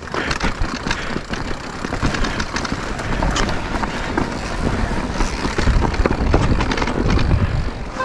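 E-bike being ridden over a rough trail: tyres and bike rattling over stones with many sharp clicks and knocks, and wind rumbling on the microphone, heaviest from about five and a half seconds in.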